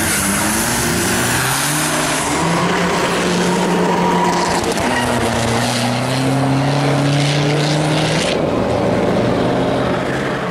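Drag-racing car engines accelerating hard, the pitch climbing through the gears with shifts about two and a half and five seconds in, then easing off about eight seconds in.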